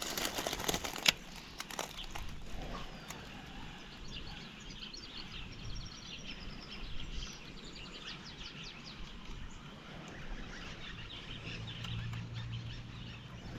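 Wild birds chirping in quick series of high notes over a quiet outdoor background, with a few sharp clicks in the first few seconds.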